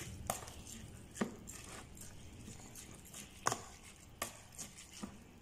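Metal spoon stirring a wet rice and chopped-vegetable filling in a plastic tub: soft squishing with several irregular light clicks of the spoon against the container.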